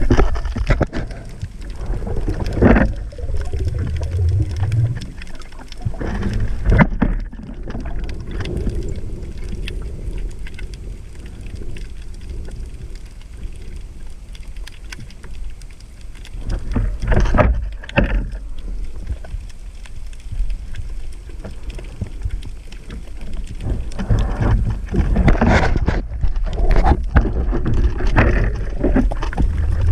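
Water moving against a camera in a waterproof housing: a steady low rumble broken by short bursts of bubbling and splashing, heavier near the end.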